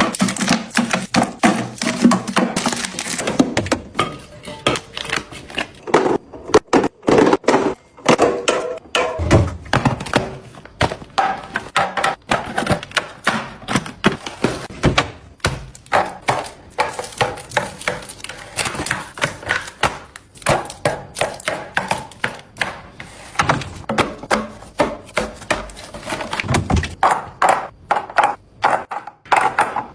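Rapid, irregular taps, clacks and knocks of small items being handled and set into containers during a restock.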